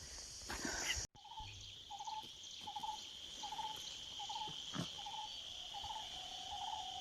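Insects droning steadily at a high pitch, with a short animal call repeated about every 0.7 s that gives way to a steady lower tone near the end. One sharp click about two-thirds of the way through.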